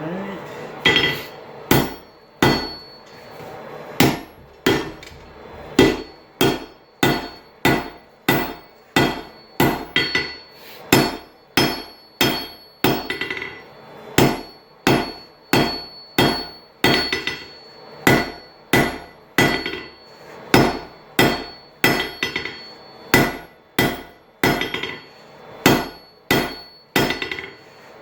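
Blacksmith's hand hammer striking a hot railroad spike on an anvil in a steady rhythm of about one and a half blows a second, each blow ringing briefly.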